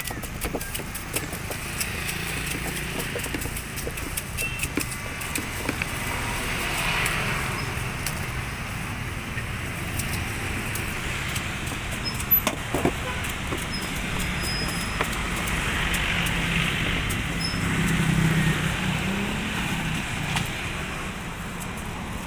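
Steady road traffic, with vehicles swelling past a few times, and light clicks and knocks from a knife cutting crystal guava; the sharpest knock comes about halfway through.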